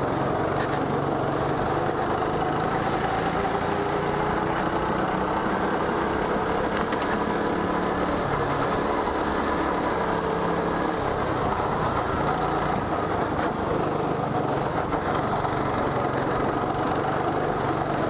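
Go-kart engine running at speed, its pitch gently rising and falling as the revs change through the corners.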